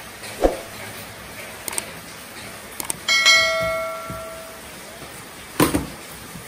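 A single bell ding from a subscribe-button sound effect, fading out over about a second and a half and preceded by a couple of light clicks. Cardboard box flaps thump and rustle as they are pulled open, once about half a second in and again, louder, near the end.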